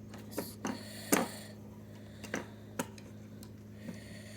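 Scattered sharp clicks and taps of small metal parts being handled, about six in all, the loudest about a second in.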